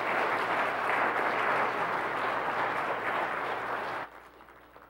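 Congregation applauding: dense clapping from a seated crowd that drops off sharply about four seconds in.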